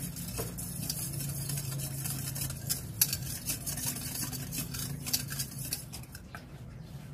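A wire whisk stirring coconut milk and water in a small metal saucepan, its wires ticking and scraping against the pan in quick, irregular clicks that thin out near the end.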